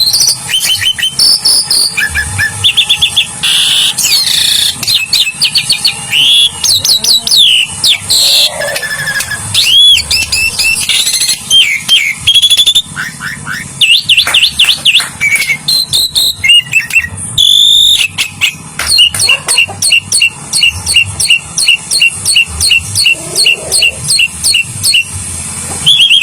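Asian pied starling (jalak suren) singing a loud, varied song of whistles, chirps and rising and falling notes, turning in the second half into a fast, even run of repeated notes. It is the bird's agitated song that calls out a rival.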